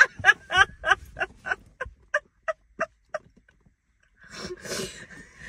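Women laughing hard: a run of about ten short rhythmic 'ha' pulses, about three a second, fading away over three seconds, then after a short pause a breathy, wheezing laugh.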